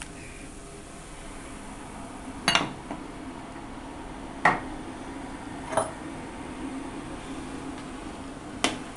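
Four sharp clinks of glass and metal, a second or two apart: an empty drinking glass set down on a saucer and a spoon knocking against the rim of a stainless steel pot, over a low steady hum.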